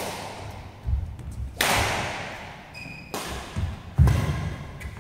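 Badminton rally in a large echoing hall: sharp racket strikes on the shuttlecock, with the players' feet thudding on the court mat. The loudest thud is a lunge about four seconds in, and a short squeak comes near the three-second mark.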